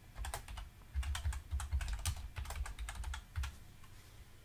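Typing on a computer keyboard: a quick, uneven run of keystrokes that lasts about three seconds and then stops.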